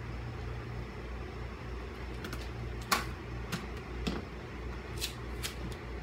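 Plastic cover and cloth being handled and fitted over a printer: light rustling with scattered soft clicks and taps, the sharpest about three seconds in, over a steady low hum.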